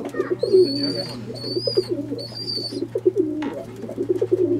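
Fantail pigeons cooing, low rolling coos repeated over and over. A high thin note sounds about four times in the first two seconds, over a steady low hum.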